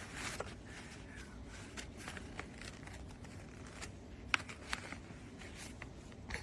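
Faint rustling with scattered light taps and clicks, one sharper tap about four seconds in.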